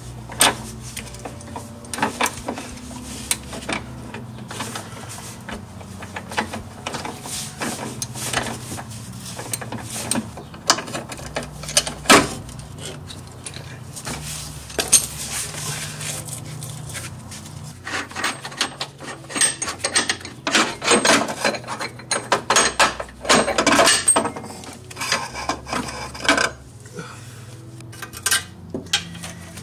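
Metal tools and car parts clinking, clanking and knocking irregularly as seized suspension and brake hardware is worked loose and handled, busiest in the second half. A low hum runs underneath.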